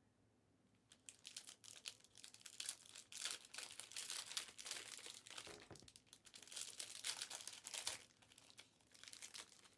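Faint, irregular crinkling and rustling of foil trading-card pack wrappers being handled and torn open, starting about a second in.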